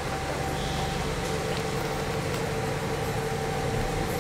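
KiHa 40 series diesel railcar running along the line, heard from the cab end: a steady low rumble with a constant two-note hum.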